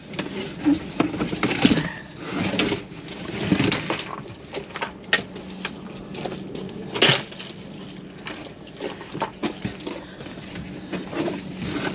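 Irregular knocking, clicking and clattering of loose objects and plastic trim being handled and moved inside a car, with one sharp knock about seven seconds in.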